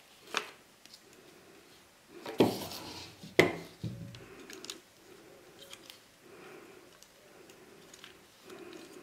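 Plastic and metal parts of a Velbon Pole Pod EX monopod being handled: a sharp click just after the start, then two louder knocks about a second apart, with lighter clicks and rubbing as its tripod base is taken off and folded.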